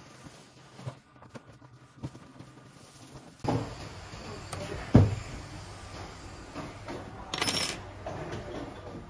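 Small metal handling sounds as a silver wire coil is taken off a hand-cranked wire winder and worked with pliers: faint clicks and taps, one sharp knock about five seconds in, and a brief bright rattle a couple of seconds later.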